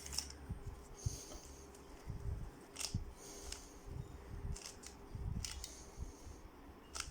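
Rubik's Cube layers being turned by hand: plastic clicking and scraping with each turn, a turn about every second.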